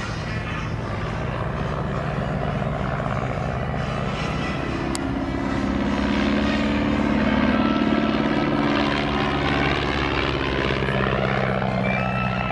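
De Havilland DH.82 Tiger Moth biplane's four-cylinder Gipsy Major piston engine and propeller running steadily as it flies past overhead, growing louder toward the middle and easing off a little as it passes.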